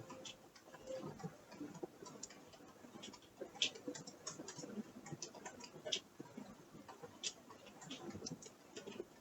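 Faint, irregular clicking and creaking ticks, several a second at uneven spacing, with no steady rhythm.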